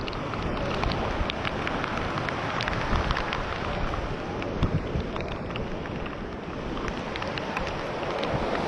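Storm wind buffeting the microphone with a low rumble, with rain falling and scattered drops ticking close by.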